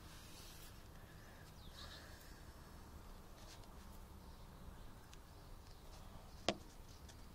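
Faint scattered ticks of a fledgling house sparrow pecking at birdseed on a tiled floor, with one sharp click about six and a half seconds in.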